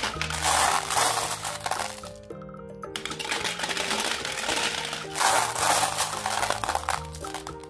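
Glass marbles clattering as they are poured by the handful into the plastic drum of a Bruder toy cement mixer truck and scooped from a bowl, over background music. The clatter stops for under a second about two seconds in, then resumes.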